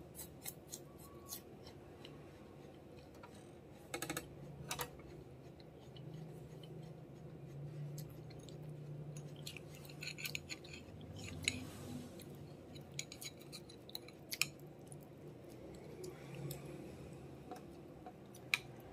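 Close-up eating sounds: crisp crunching as raw jicama is chewed, and sharp clicks of a metal spoon knocking against ceramic bowls as curry is scooped onto rice. The loudest spoon clicks come in the second half.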